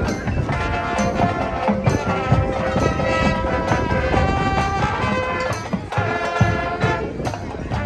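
High school marching band playing its halftime show: brass holding sustained chords over a drumline beat.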